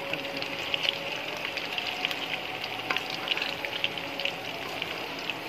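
Coated fish pieces deep-frying in hot oil in a wok: a steady sizzle with constant crackling pops.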